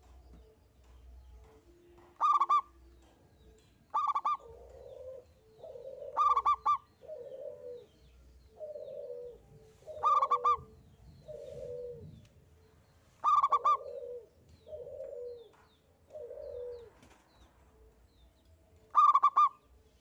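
Zebra dove (perkutut) cooing: a run of soft, lower coos broken every few seconds by a loud, short, higher note, six of these in all.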